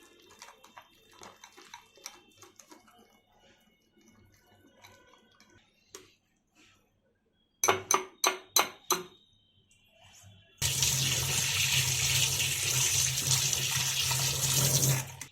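Five sharp knocks in quick succession, then about two-thirds of the way through a kitchen tap is turned on and water runs steadily into a sink, stopping just before the end.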